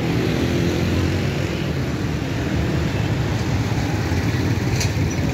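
Steady low engine rumble of street traffic, with a brief high click near the end.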